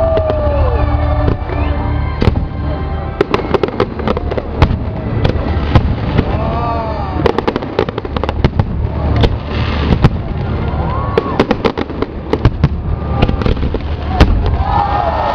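Fireworks bursting overhead: a rapid series of sharp bangs and crackles over a steady low rumble.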